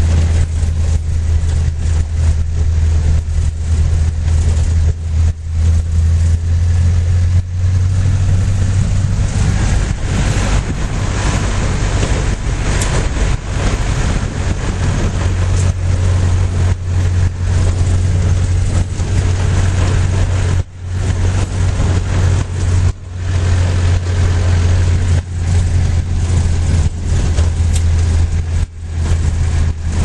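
Vehicle engine running with a deep steady drone, heard from inside the cab, mixed with road noise and knocks and rattles from the body over a rough dirt track. The level drops briefly a few times in the second half.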